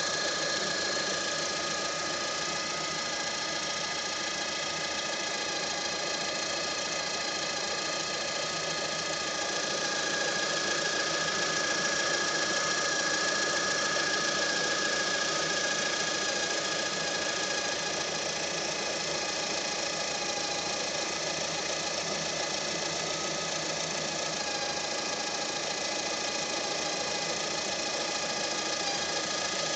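Lada Granta engine running with a steady whistling buzz made of several high steady tones, which the owner puts down to the crankshaft position sensor.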